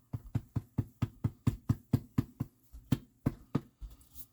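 A bottle of habanero ranch dressing being hit over and over to get the dressing flowing: a rapid run of dull knocks, about four or five a second, spacing out near the end.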